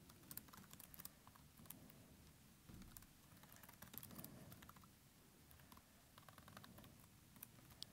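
Faint computer keyboard typing: soft, irregular key clicks as code is entered.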